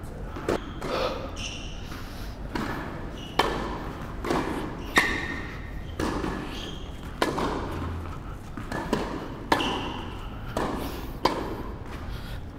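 Tennis balls being struck with rackets and bouncing on an indoor hard court during a practice rally at the net, a sharp knock about once a second.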